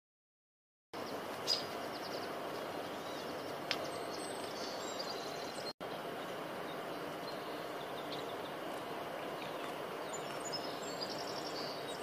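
Steady outdoor background noise with scattered short, high bird chirps. It starts about a second in and breaks off for an instant about halfway.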